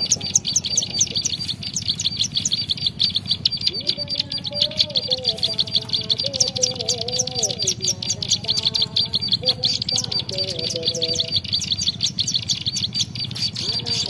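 Small songbirds calling at a cage trap: a rapid, unbroken string of high chirps, about five a second, as wild birds come at the caged bird. Fainter, lower sliding notes join in from about four to eleven seconds in.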